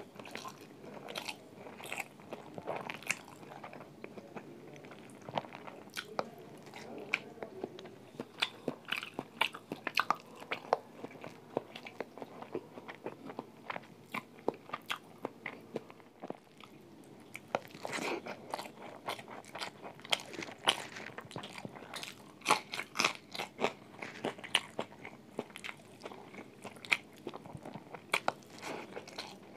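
A man biting and chewing a meal of spicy roast chicken, rice, egg, green chili and tomato close to a phone microphone: a steady stream of irregular crunchy clicks, with a denser run of bites a little past the middle.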